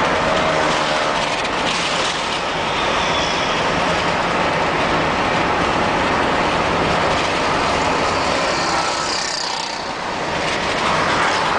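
Steady road noise of a moving car heard from inside the cabin: tyres on the road with engine hum, dipping briefly about ten seconds in.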